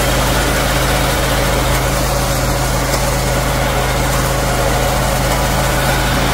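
The 10 HP petrol engine of a Sraja R525 walk-behind power tiller runs at a steady, unchanging speed while its front reaper attachment cuts standing wheat.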